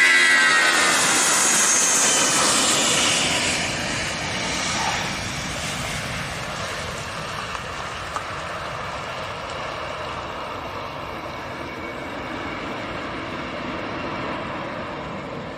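Jet airliner's turbofan engines at takeoff thrust. It is loudest at the start, with whining tones that slide downward, then fades over about five seconds into a steady, quieter rumbling noise as the aircraft moves away.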